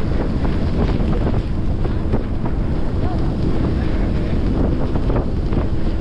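Strong wind buffeting the microphone on an open boat deck: a steady, loud, low rumble.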